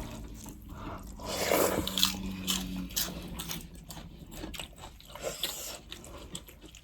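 A person biting and chewing food close to the microphone: a string of short, irregular mouth clicks and wet chewing noises.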